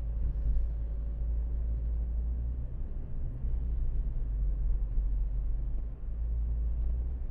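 Steady low rumble of road and engine noise inside the cabin of a 2012 Ford Focus automatic while it is being driven.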